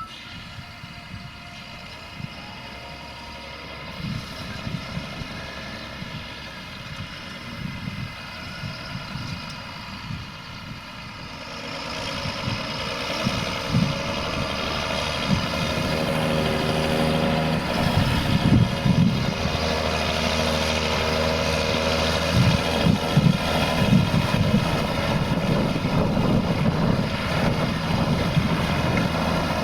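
John Deere 6520 tractor engine running steadily under load while pulling a Kverneland plough, getting louder about halfway through as it draws closer.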